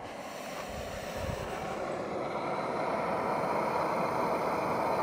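Propane burner running with a steady hiss under a pot of water that is heating for coffee, growing louder over the first few seconds and then holding steady.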